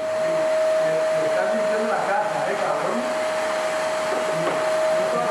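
A small electric appliance motor running steadily: an even whine over a rushing air noise, with no change in speed.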